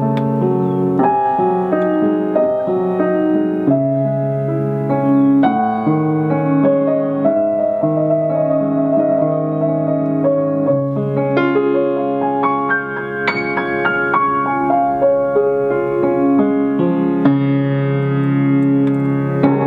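Cristofori baby grand piano played by hand: sustained chords in the bass under a melody, with fresh notes struck every second or so.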